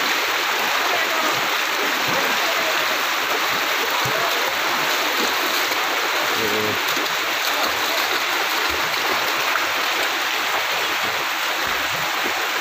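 Floodwater rushing past in a steady stream, a constant rush of flowing water.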